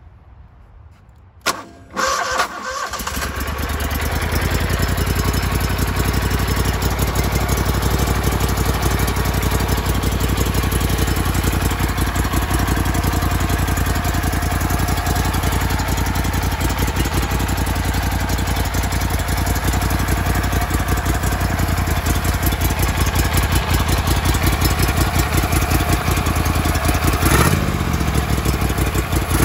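Mud Buddy Sport V 44 V-twin mud motor being started: it catches about two seconds in, settles within a couple of seconds and then idles steadily with an even low exhaust pulse, with a brief blip of the throttle near the end.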